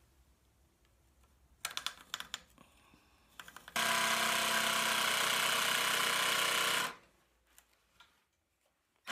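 A few clicks and knocks, then a cordless jigsaw cutting through a wooden chair armrest, running steadily for about three seconds before it stops and winds down.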